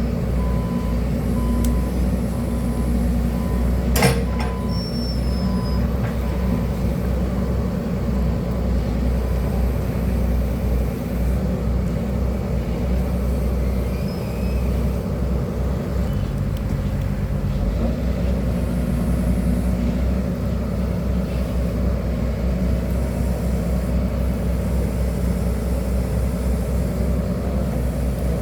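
Excavator diesel engine running steadily, with a single sharp click about four seconds in.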